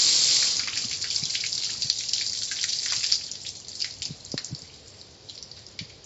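Car wash water spray hissing, dying away about half a second in, then water dripping and splashing in scattered drops that thin out and grow fainter toward the end.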